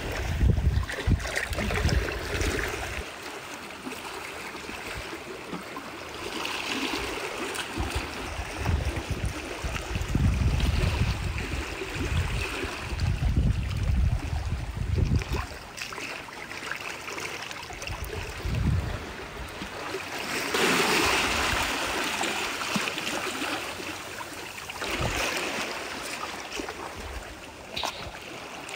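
Shallow seawater in a rock pool splashing and trickling as an eel is grabbed and lifted with long tongs, with wind rumbling on the microphone in gusts, heaviest near the start and about halfway through.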